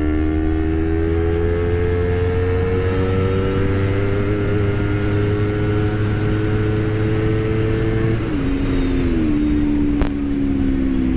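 Honda CBR250RR's parallel-twin engine pulling at high speed in fourth gear, its note rising slowly and steadily, then dropping in two steps near the end and sliding lower. Wind rush on the microphone runs underneath, and there is a single sharp click about ten seconds in.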